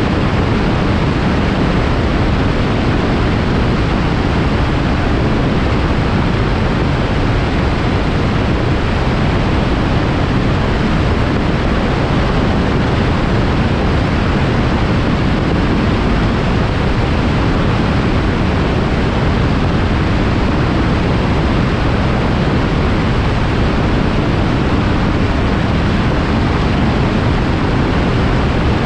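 Microlight aircraft in flight: a steady rush of wind and engine noise that does not change.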